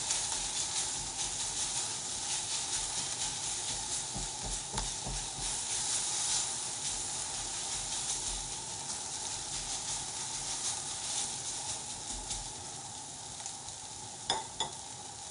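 Sliced onions and bell peppers sizzling and crackling as they fry and brown in a hot wok, stirred and turned in the pan. The sizzle eases a little near the end once the stirring stops, with a couple of short light knocks.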